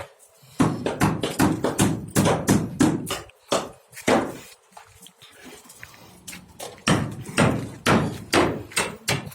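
Swiftlet calls: a rapid, irregular series of short, sharp chirps, with a quieter spell in the middle.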